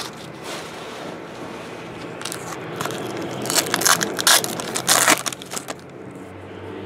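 Foil trading-card pack wrapper being handled and crinkled, a flurry of sharp crackles between about two and six seconds in.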